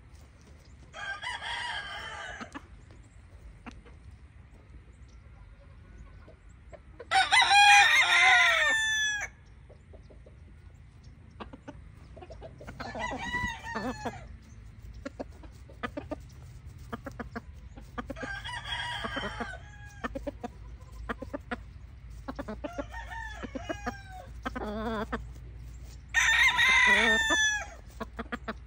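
Rooster crowing again and again: about six long crows spread out, the loudest about seven seconds in and again near the end.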